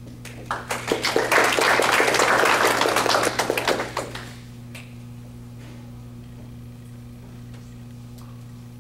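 Audience applauding. The clapping builds quickly, holds for about three seconds and dies away about four seconds in, leaving a steady low electrical hum.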